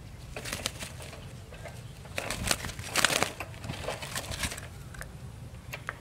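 Doves fluttering and scuffling inside a wire bird cage while one is being put in, in a few short bursts, the loudest about three seconds in.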